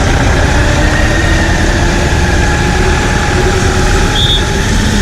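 Motorcycle engine running at low speed in city traffic, a steady low rumble with a faint engine note that rises slowly. A brief high chirp about four seconds in.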